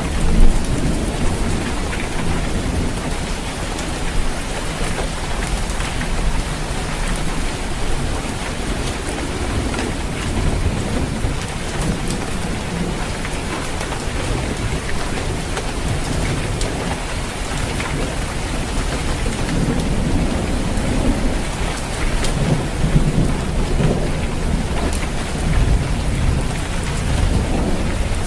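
Steady heavy rain falling on a roof, dense patter of drops with a low rumble underneath that swells and ebbs.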